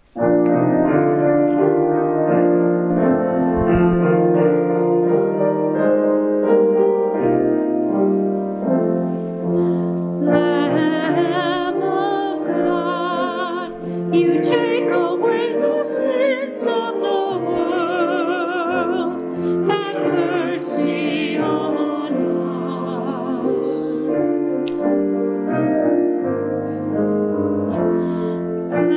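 Piano playing slow sustained chords, joined about ten seconds in by a solo singer with a wide vibrato: sacred music.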